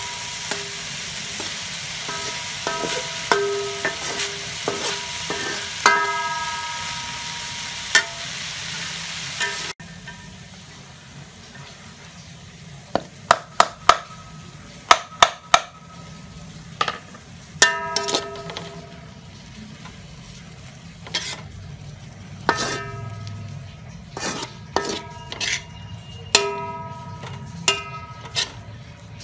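Pork and julienned ginger sizzling in a metal wok while a metal spatula scrapes and knocks against the pan, each strike leaving a brief metallic ring. About ten seconds in the sizzle drops away suddenly, and after that the spatula's knocks come in quick clusters.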